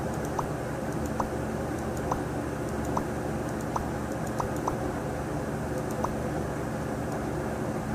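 Light fingertip taps on a tablet touchscreen, about eight faint clicks at uneven intervals, over a steady low background hum.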